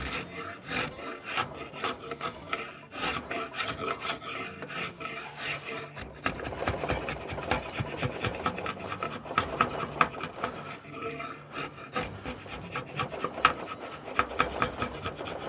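Draw knife shaving a hickory axe handle blank: repeated scraping pulls of the blade across the wood, lifting curls, with brief pauses between runs of strokes.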